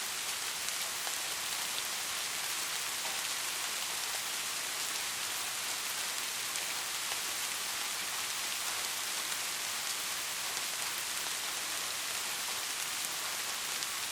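Steady rain falling, an even hiss of many drops with scattered individual drop ticks and no thunder.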